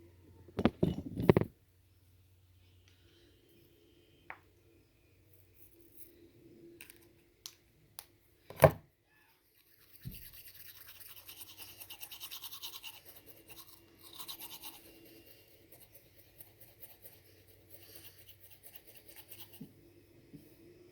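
Toothbrush scrubbing teeth in quick back-and-forth strokes, starting about halfway through and going on for about ten seconds. A few knocks come before it, the loudest just before the brushing starts.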